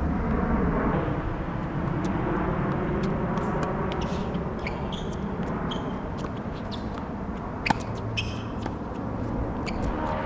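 Tennis rally: a few sharp racket-on-ball hits, the loudest about two-thirds of the way through, over a steady outdoor background rumble.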